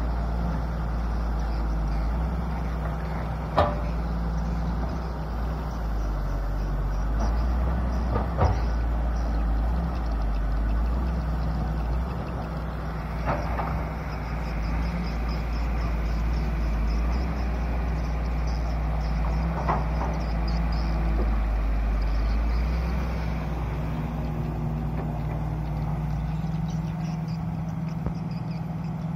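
Volvo 20-ton-class crawler excavator working: its diesel engine runs steadily with a low drone. A few sharp knocks come several seconds apart as the machine moves and digs.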